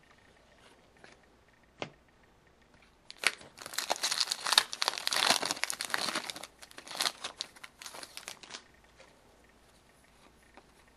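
A trading-card pack wrapper being torn open and crinkled. There is a single short tap a little under two seconds in, then about five seconds of dense crackling from about three seconds in.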